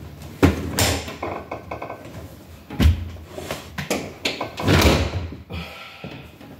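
A door sweep being handled and fitted against the bottom of a front door: knocks, with a thump about half a second in and another near three seconds, and a longer scraping rustle around five seconds.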